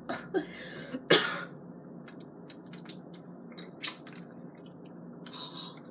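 A person's breathy sputters and a sharp cough-like burst about a second in, reacting to a mouthful of sour lime juice, followed by a few faint clicks.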